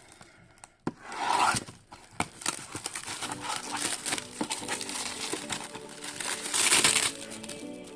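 Packaging crinkling and being torn open by hand: rustling and small crackles, with two louder rips about a second in and near the seventh second.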